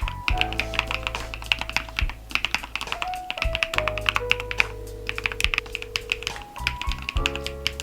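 Fast, continuous typing on an osume Nemui mechanical keyboard, keystrokes clacking in quick succession, over soft background music.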